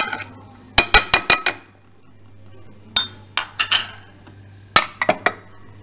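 A glass bowl clinking against the rim of another bowl as chopped onion is tipped and tapped out of it. The clinks come in four quick clusters of sharp taps, each with a short ring.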